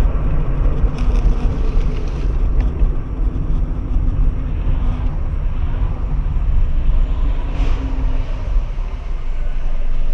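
Steady low rumble of engine and road noise inside a moving car, picked up by its dashcam.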